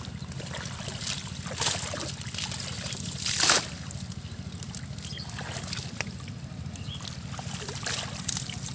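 Water sloshing and dripping as a wet fishing net is hauled and gathered by hand in shallow pond water, with a few short splashes, the loudest a little before halfway, over a steady low hum.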